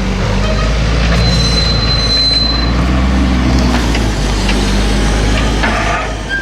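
Heavy farm machine's diesel engine running steadily under load, with a high metallic squeal for a second or two near the start.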